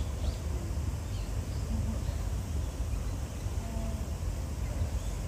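Outdoor background noise: a steady low rumble with faint distant voices and a few faint high chirps.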